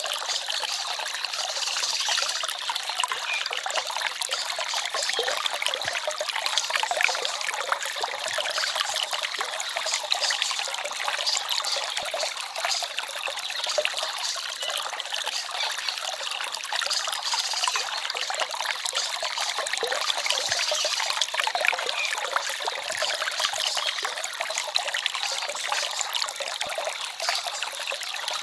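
Small forest stream flowing with a steady, trickling babble.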